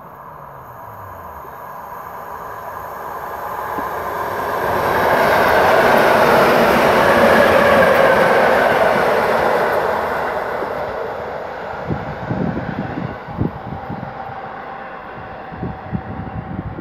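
An EN71 electric multiple unit passing at speed, its wheels on the rails and its running noise building up, loudest about six to eight seconds in, then fading away. Irregular low thumps follow near the end.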